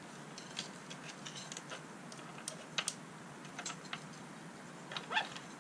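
Scattered, irregular small metallic clicks and rattles of a bicycle roller chain being handled and lifted onto a chain keeper (dummy hub) clamped in the rear dropouts.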